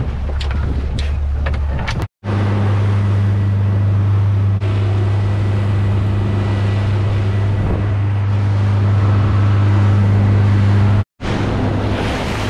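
Outboard boat motor running at a steady low hum while the boat cruises, over wind and rushing water. A few clicks and knocks come in the first two seconds. The sound breaks off briefly twice, about two seconds in and near the end.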